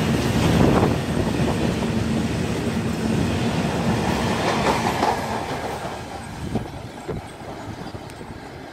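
Wheels of a freight train's open steel wagons rumbling and clicking over the rail joints as the train passes. The noise fades over the last few seconds as the brake van draws away, with a couple of sharp clicks near the end.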